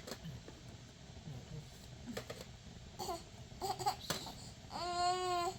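A young child's voice: quiet at first, a few short whimpering sounds about three seconds in, then one long crying wail near the end.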